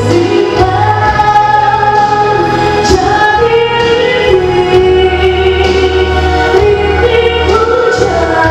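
Woman singing into a handheld microphone over an instrumental accompaniment, holding long notes.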